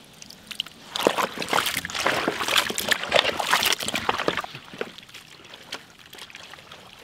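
Hands squeezing and turning a large mass of raw goat meat pieces coated in yogurt marinade in a metal basin: wet squelching and slapping, densest in the first few seconds, then softer.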